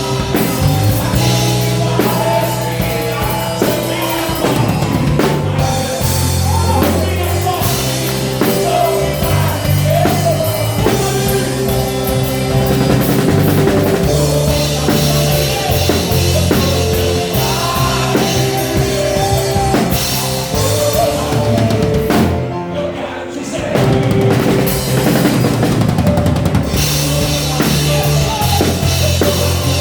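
Live gospel rock band playing, led by an electric bass line and a drum kit, with the drums and cymbals dropping out briefly about 22 seconds in.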